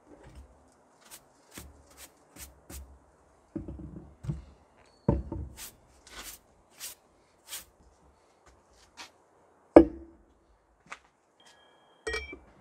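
A stiff bristle brush and a hand sweeping a wooden picnic table in short strokes, with several knocks of things set down on the wood, the loudest about ten seconds in. Near the end a stainless steel pour-over coffee dripper clinks onto a steel tumbler with a brief metallic ring.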